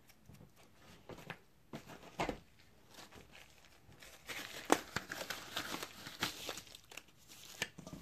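Crinkling and rustling of handled material, strongest in the second half, with a few light knocks of handling on the cutting board in the first half.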